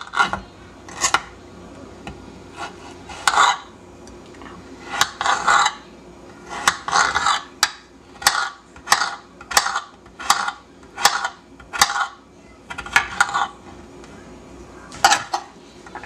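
Kitchen knife cutting a peeled raw potato into small pieces on a wooden board: a series of sharp knocks as the blade goes through and strikes the wood. They are irregular at first, settle into a steady run of about one and a half chops a second through the middle, and then come singly near the end.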